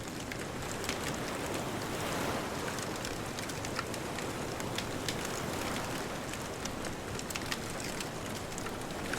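Wood bonfire crackling with frequent small irregular pops and snaps over a steady wash of distant ocean surf.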